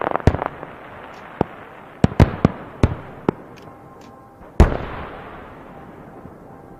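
Aerial firework shells bursting: a quick run of sharp bangs, then scattered single bangs with some faint crackle, and the heaviest bang about four and a half seconds in, followed by a long rolling echo that fades away.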